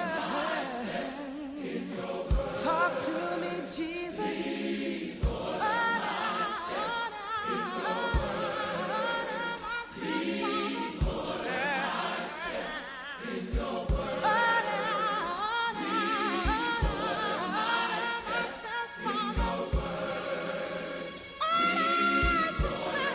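A gospel choir singing, the voices wavering with vibrato, in phrases with short breaks between them.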